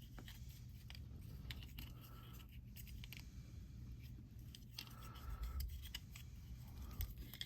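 Faint clicking and rubbing of small plastic action-figure parts being handled and fitted together, with scattered light clicks throughout.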